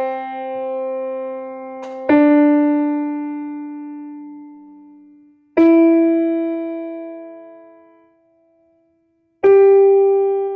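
Piano playing a melodic dictation exercise: single notes struck slowly, one about every three to four seconds, each left to ring and fade before the next.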